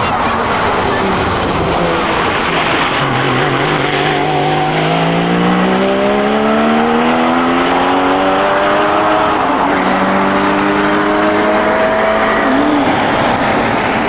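Porsche Cayman GT4's 3.8-litre flat-six engine pulling hard. Its note rises steadily for several seconds, drops back about nine seconds in, then holds steadier, over a constant rush of wind and road noise.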